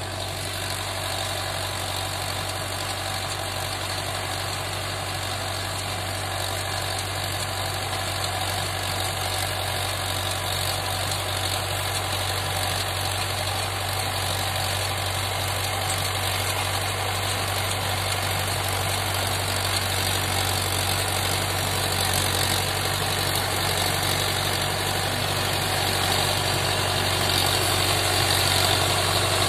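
Mahindra Yuvo tractor's diesel engine running steadily while it drives a 7-foot rotavator through hard soil. The drone grows gradually louder as the tractor comes closer.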